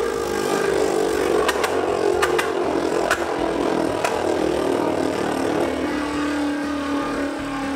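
Beyblade Burst top on an Rb driver spinning across a plastic stadium floor: a steady whirring hum that slowly drops in pitch as the top loses spin, with a few sharp ticks in the first half.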